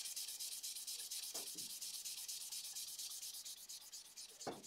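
Fine sandpaper rubbed back and forth by hand along an oak pen blank on the lathe, sanding with the grain to take off the radial scratches left by sanding on the spinning lathe: a quick, even rasping rhythm. A soft knock comes near the end.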